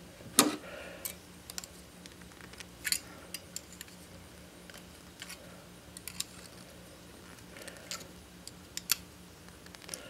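Steel pliers clicking and tapping against stiff 12 gauge copper wire and each other while the wire's wraps are twisted tight in a Western Union splice: scattered light metallic clicks at irregular intervals, the sharpest about half a second in.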